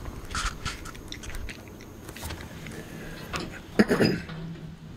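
Scattered metallic clicks and scrapes from a Scag Tiger Cat II mower's parking brake foot pedal and linkage being worked by foot with the engine off, with a louder clunk about four seconds in.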